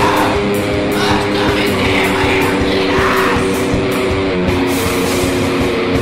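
Black metal recording: distorted guitars hold sustained chords over dense, fast drumming, and the chord changes about four and a half seconds in. A harsh, rasped voice comes through in the first half.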